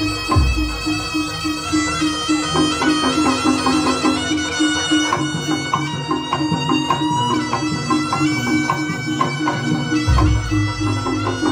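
Live East Javanese jaranan ensemble: a slompret (reed shawm) plays a held, stepping melody over a steadily repeating gamelan pattern and kendang drum strokes. A deep gong stroke sounds about half a second in and again near the end.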